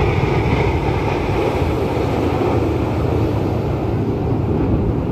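Steady low rumble of jet aircraft flying over, with wind buffeting the microphone.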